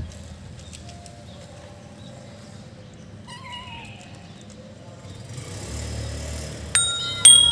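A kitten gives one short, wavering meow about three seconds in. Near the end, loud plinking, bell-like music notes begin.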